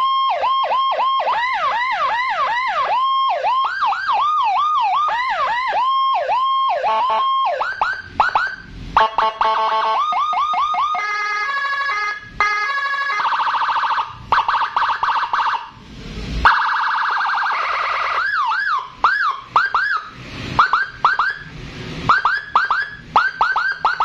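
A 60-watt, 24-tone police-escort electronic siren (custom Whelen type) sounding through a small horn speaker, switched from tone to tone: fast up-and-down yelp sweeps for the first several seconds, then a rapid warble, a steady held tone, a buzzy horn-like blast twice, and short repeated rising chirps near the end.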